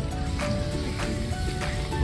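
Background music with held melody notes and a beat.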